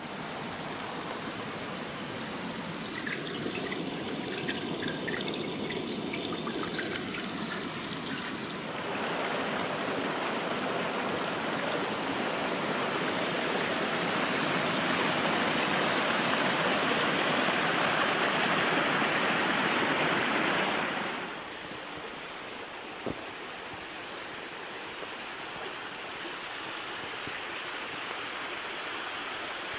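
Shallow mountain stream running over rocks, a steady rush of water. It gets louder about 9 s in and drops suddenly about 21 s in.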